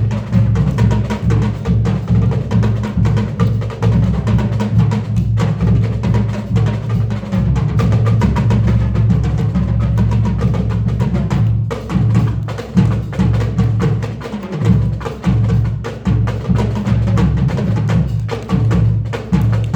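Marching percussion playing a fast, continuous drum piece, with a steady run of quick strokes over heavy bass drums.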